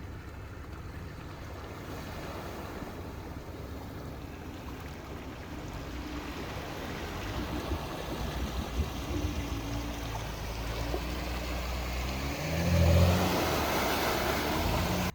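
Jeep engine running as it drives through a water-filled trail hole, with water sloshing and splashing that grows louder. The engine surges once near the end, and the sound cuts off abruptly.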